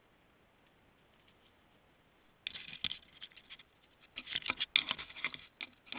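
A raccoon pawing and scratching at a trail camera's housing right against its microphone. It is a run of quick scratches, scrapes and taps that starts about two and a half seconds in and is busiest a little before the end.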